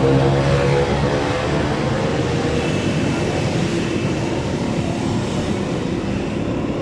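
Motorcycle engine running with a pitched note that fades about a second in, leaving a steady hum of traffic noise.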